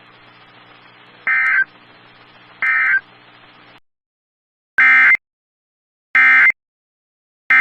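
Emergency Alert System SAME data bursts: a pair of quieter shrieking digital bursts over a low hum from the relayed broadcast audio, then, after the hum cuts off, three loud short bursts about 1.4 s apart. These are the end-of-message (NNNN) code that closes an alert.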